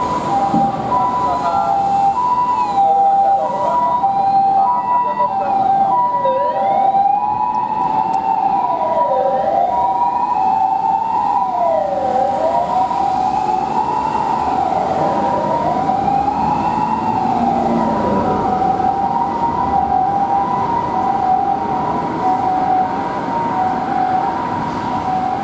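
Japanese ambulance's electronic siren sounding its two-tone hi-lo "pee-po" over traffic noise. From about two seconds in until about eighteen seconds, a wailing siren also rises and falls, about once every three seconds.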